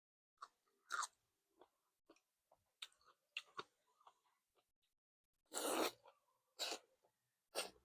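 A person chewing and crunching a mouthful of boat noodles, close to the microphone, with a run of short, soft wet mouth sounds and a few louder ones in the last couple of seconds.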